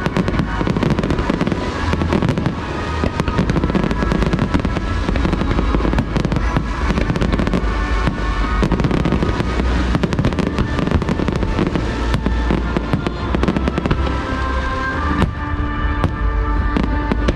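Fireworks show with aerial shells bursting in quick, continuous succession over a deep, steady rumble, while music plays along with the display.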